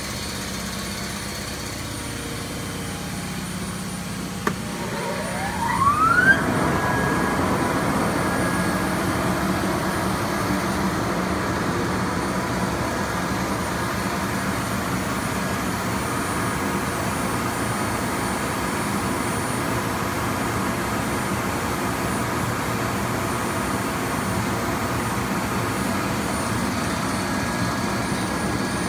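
Weeke Optimat Vantech 480 CNC router running. About five seconds in, its spindle spins up in a rising whine and then holds a steady high whine over the machine's continuous running noise.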